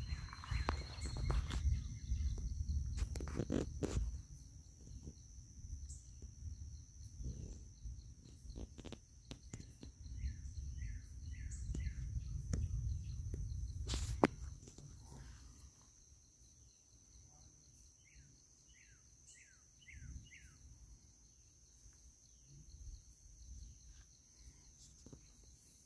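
Outdoor dusk ambience: a steady high insect chorus with a fainter pulsing trill beneath it, and a bird calling in two short runs of about five falling notes, about ten and eighteen seconds in. A low rumble on the microphone fills the first half, with one sharp click about fourteen seconds in.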